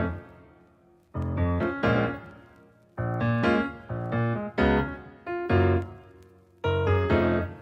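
Background piano music: short phrases of chords struck and left to fade, with brief pauses between them.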